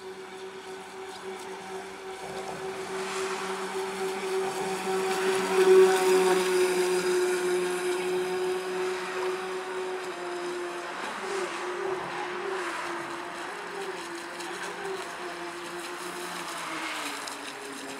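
Twin 540 electric motors of an RC model boat whining at high speed. The whine swells loudest as the boat passes close about six seconds in, then wavers and settles slightly lower in pitch as it runs away over the choppy water.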